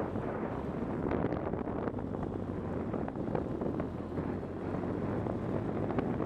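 Wind rushing over the microphone of a motorcycle riding at road speed, with the motorcycle's engine giving a steady low hum underneath.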